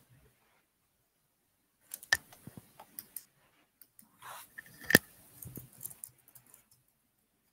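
A few sharp clicks and knocks and a short rustle between quiet stretches. The loudest knock comes about five seconds in.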